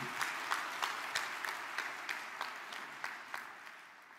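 Large audience applauding, a dense even clapping that fades away toward the end.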